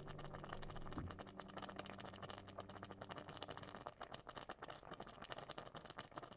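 Coconut-cream fish curry simmering in a pan: a dense, irregular patter of small pops and crackles from the bubbling gravy.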